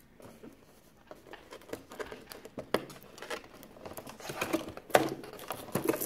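Cardboard and plastic toy packaging rustling and crinkling as pieces are worked free of a box insert, with scattered small clicks and snaps. It gets busier after about two seconds, and the sharpest click comes about five seconds in.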